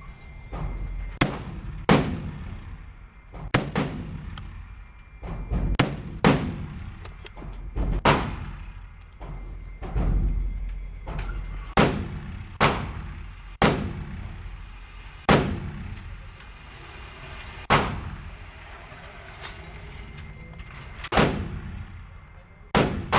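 Semi-automatic AR-15 rifle firing single shots at an unhurried pace, about fifteen shots roughly one to two seconds apart, each with a short echo.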